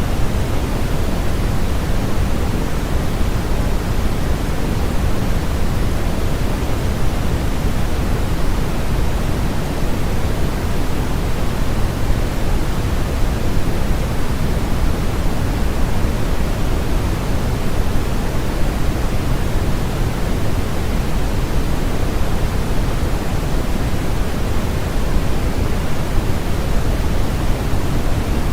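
Steady, unchanging synthetic noise hiss, heavier in the low end than in the highs, with no rhythm or events.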